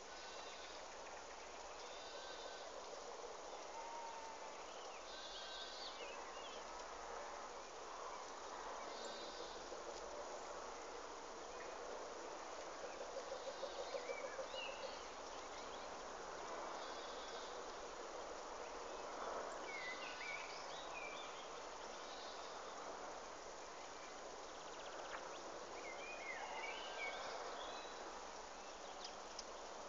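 Woodland ambience: a steady hiss of insects with repeated short high trills, and scattered short bird chirps, most in the second half. About halfway through, a brief run of low rapid pulses is the loudest sound.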